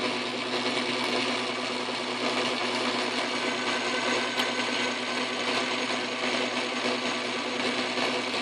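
Craftsman Atlas metal lathe running steadily under power, turning a steel shaft and taking a light cut to bring its diameter down.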